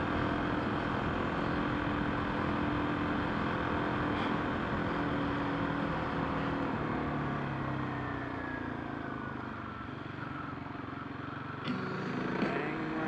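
Car engine and road noise heard from inside the cabin. The engine note falls as the car slows about halfway through, and a couple of sharp clicks come near the end.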